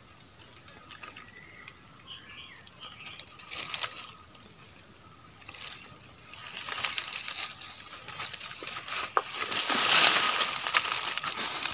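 Footsteps crunching through dry leaf litter and brushing against twigs and branches, with dense crackling that builds up from about halfway through.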